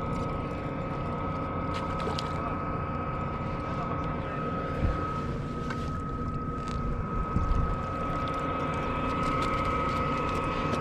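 A boat motor running steadily, a constant whine held over a low rumble, with a few faint clicks.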